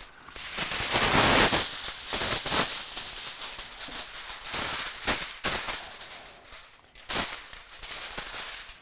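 Heavy-duty aluminium foil being torn from the roll and crinkled as the sheet is handled and spread out: a loud rustling tear in the first couple of seconds, then irregular crackling rustles with a few sharp clicks.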